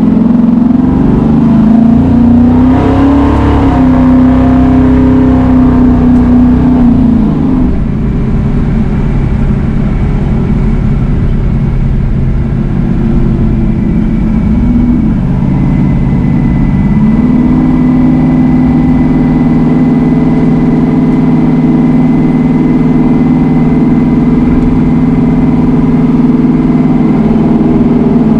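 1968 Dodge Dart drag car's small-block Mopar V8 heard from inside the cabin while driving. Its note climbs in the first two seconds and holds, falls near eight seconds, climbs again around seventeen seconds and holds, then drops at the end.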